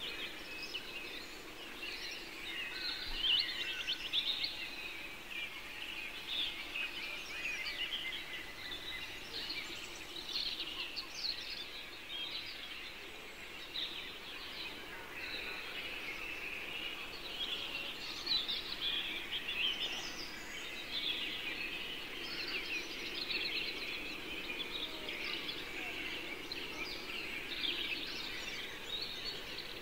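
Many birds chirping and singing together, a continuous chorus of short high calls overlapping throughout, with a faint steady low hum beneath.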